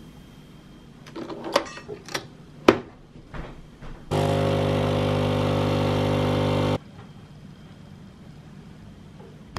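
A few light clinks and knocks of a mug and spoon being handled, then a small electric kitchen appliance switched on by a button press, running with a loud, steady buzz for under three seconds before it cuts off abruptly.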